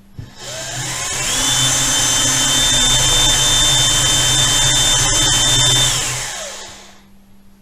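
Electric drill running with no load: the motor spins up with a rising whine, holds a steady high speed for several seconds, then winds down and stops.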